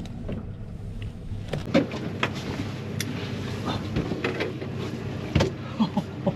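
Fishing boat's engine running steadily, with scattered knocks, clicks and short squeaks from handling fish and tackle on deck.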